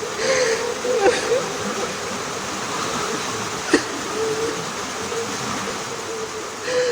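Steady rain hiss under a man weeping: a wavering, whimpering voice with sharp catches of breath about a second in and near the middle.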